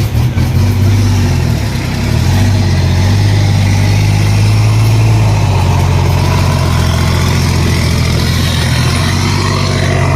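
Isuzu Deca FXZ 360 truck's diesel engine running steadily with a deep, even drone.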